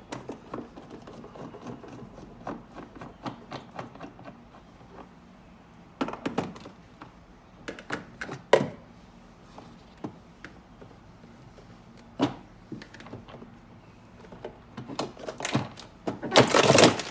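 Scattered knocks and sharp cracks of ice being broken loose inside a frozen-up refrigerator, ending in a dense, loud cluster of cracking.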